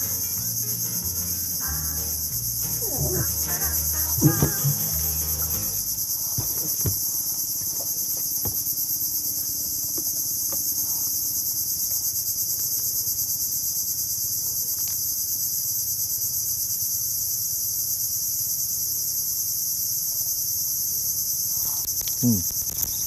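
Steady, loud, high-pitched insect chorus from the mangrove forest, an even buzzing drone that does not break.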